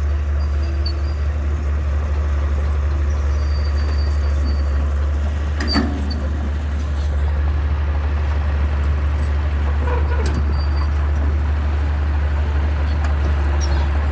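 Bulldozer's diesel engine running steadily with a deep, even drone, and a single sharp knock about six seconds in.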